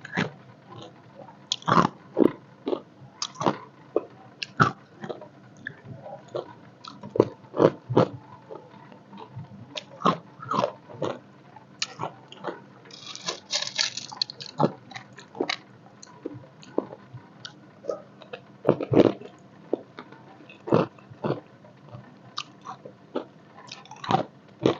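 Ice cubes being bitten and crunched between teeth, a run of sharp, irregular crunches, one loud crunch about nineteen seconds in.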